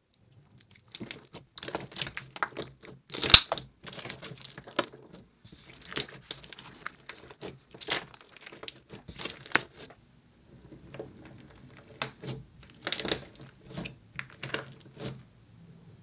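Clear putty packed with donut charms being squeezed, stretched and pressed by hand, giving irregular sticky crackles and pops, with one sharp snap about three seconds in.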